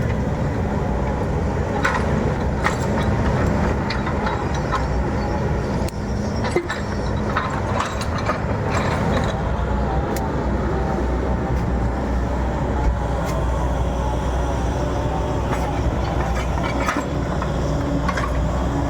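Heavy diesel machinery running steadily, with scattered sharp clanks and knocks over the engine rumble.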